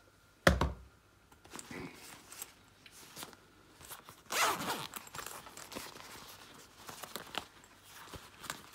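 The zip on a tool bag being pulled, a rasp of about half a second roughly four seconds in. It follows a sharp thump about half a second in, and there are small clicks and rustles of tools being handled throughout.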